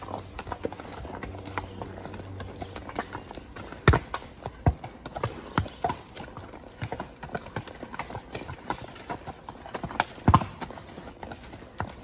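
Horse hoofbeats on a dirt forest trail: an uneven run of thuds and clicks as the hooves strike ground, sticks and leaves, with a few louder thumps about four seconds in and again about ten seconds in.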